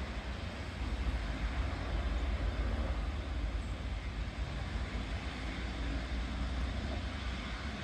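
Arcade & Attica No. 18 steam locomotive working, heard as a steady rumble with no distinct separate chuffs.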